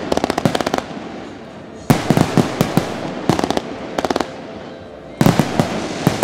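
Fireworks display: loud shell bursts and rapid strings of sharp cracks. The heaviest bangs come about two seconds in and again about five seconds in.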